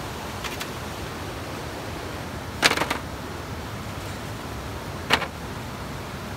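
Hollow bamboo poles clacking against each other as they are laid on a bamboo frame: a quick cluster of knocks about two and a half seconds in, the loudest sound, and one sharp knock about five seconds in, over the steady rush of a stream.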